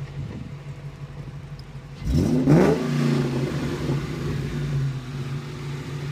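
Ford Mustang Mach 1's 4.6-litre DOHC V8 idling, then about two seconds in revving up sharply as the car pulls away hard, the note climbing fast before settling into a steady drone as it drives off.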